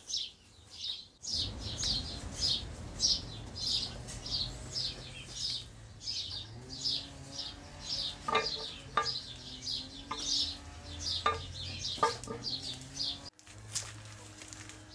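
A small bird chirping over and over in short, high, falling chirps, about two or three a second. A few sharp metallic clicks come near the middle as steel machine parts are handled on a metal table, over a low steady hum.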